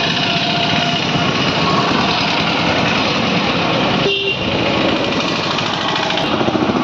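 Busy road traffic: motorcycle, scooter and auto-rickshaw engines running and passing close by, with a short horn toot about four seconds in.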